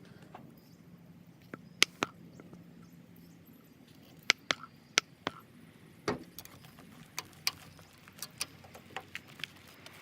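Scattered sharp clicks and taps, a dozen or so at irregular intervals, as slime-making containers and tools are handled on a table. A faint steady hum sits underneath.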